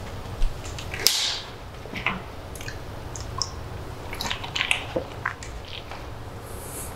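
Small handling noises from a person moving about a small room: scattered light clicks and taps, a sharper knock about half a second in and a short hiss about a second in, over a steady low hum.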